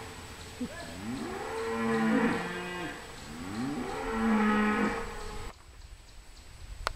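Cattle mooing: about three long calls in a row, each rising and then falling in pitch, dying away about five and a half seconds in.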